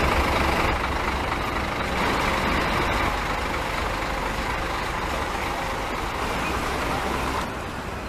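Scania K410 coach's diesel engine idling, a steady low running hum with a hiss over it, which drops in level about seven and a half seconds in.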